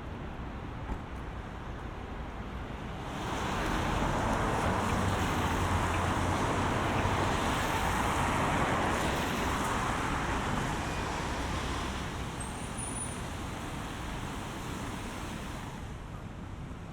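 Rushing noise of a rainstorm on a wet city street: a steady hiss that swells sharply about three seconds in and eases off after about twelve seconds.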